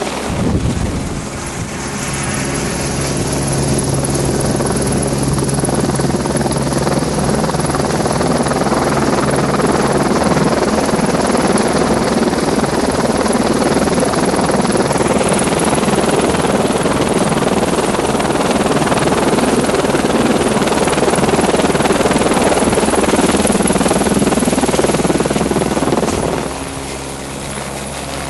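Helicopter flying close by, loud rotor and engine noise that builds over the first couple of seconds, holds steady, then drops off about 26 seconds in.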